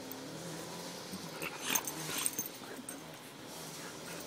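An American Mastiff and a Bernese mountain dog play-fighting, with low dog growling and a louder, sharper burst of dog noise about one and a half to two seconds in.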